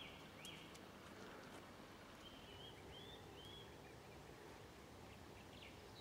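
Near silence with faint bird calls: two short rising chirps in the first half second, then a short run of chirps about two to three seconds in.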